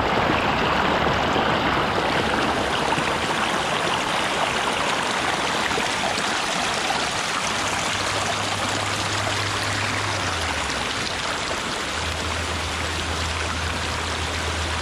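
Small rocky woodland stream splashing over a little cascade, a steady rush of water close to the microphone.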